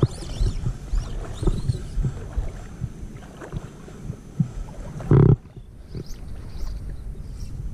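Wind buffeting the camera microphone, with water sloshing and lapping around the legs of someone wading on a shallow flat. There is one louder thump about five seconds in.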